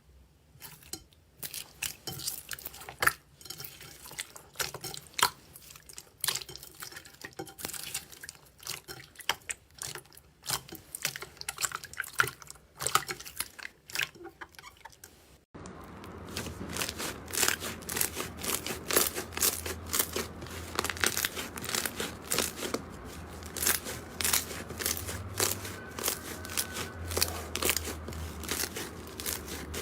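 Slime being squeezed and pressed by hand, giving many small sharp crackling clicks and pops. About halfway through the sound switches abruptly to a louder, denser crackling with a low hum underneath.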